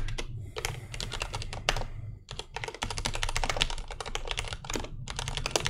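Fast typing on a computer keyboard: quick runs of key clicks, broken by short pauses about two seconds in and again near the end.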